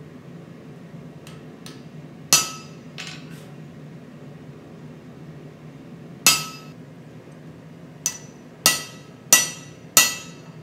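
Hand hammer striking a punch held on a glowing-hot steel billet on the anvil, driving in the eye of a hammer head. A few light taps lead into single heavy blows, then four strong blows in quick succession near the end, each with a short metallic ring.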